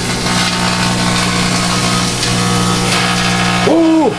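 Microwave oven running with a light bulb inside, a steady, loud electrical buzzing hum. A person exclaims 'ooh' near the end.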